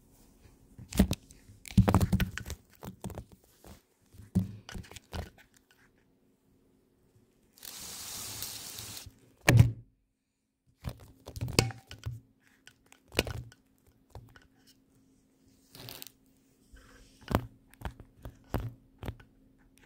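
Handling noise on a phone's microphone: irregular knocks, thumps and rubs as the phone is moved about with its lens covered, with a stretch of rustling about eight seconds in.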